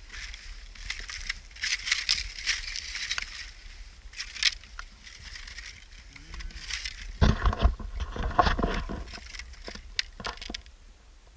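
Footsteps crunching and scraping on loose, broken volcanic lava rock, with scattered clicks of small stones. There is a louder stretch of heavier crunching and bumps about seven to nine seconds in.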